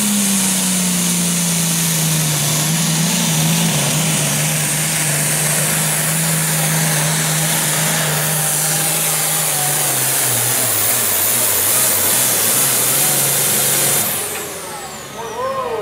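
Turbocharged International 1466 diesel pulling tractor at full throttle dragging the weight sled, its engine pitch sinking slowly as it lugs down under the growing load. Near the end the throttle is cut, the engine drops off and the turbo's whistle winds down.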